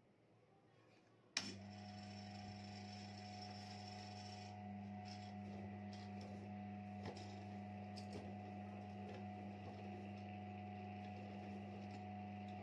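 A switch clicks about a second and a half in and the homemade drill press's electric motor starts, then runs steadily with a mains hum and a faint higher whine.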